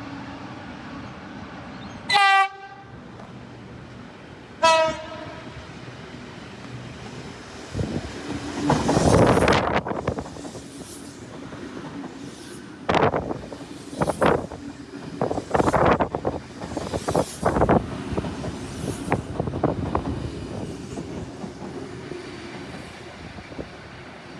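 A train sounds two short horn blasts about two and a half seconds apart. It then runs through the station, rattling, with a series of sharp clacks as its wheels pass over rail joints.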